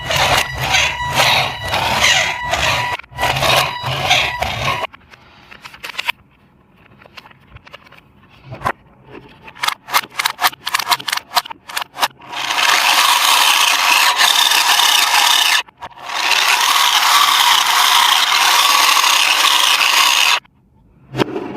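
Packaging being handled during an unboxing: a run of scattered clicks, then two long stretches of loud, even scraping that stop abruptly. A loud pitched call with harmonics runs through the first five seconds.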